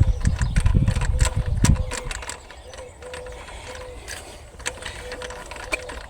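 Metal hand-tool clicking and rattling during engine work, heavy and dense for about the first two seconds, then lighter scattered clicks.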